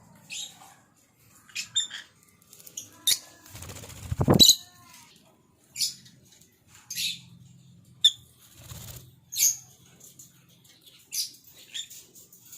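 African lovebirds (Agapornis) giving short, sharp, high-pitched chirps, about a dozen scattered calls, with a louder thump about four seconds in.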